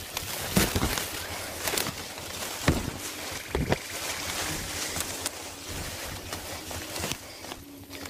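Leaves, vines and brush rustling and crackling, with irregular footsteps, as a person pushes through dense undergrowth.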